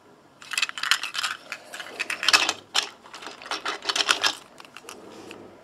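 Pull-back spring motor of a toy CK100 steam locomotive, its small plastic gears whirring and clicking as the wheels turn, in about three bursts of roughly a second each.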